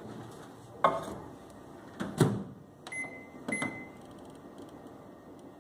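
Microwave oven being loaded and set: a dish knocks against it with a brief ring, the door shuts with two loud thuds, then two short keypad beeps about half a second apart as the cooking time is entered.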